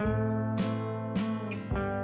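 Background music: an acoustic guitar strumming chords, with a stroke about every half second and a chord change near the end.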